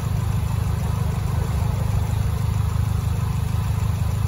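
Peugeot 206 engine idling steadily at running temperature, with its electric radiator fan not yet switched on.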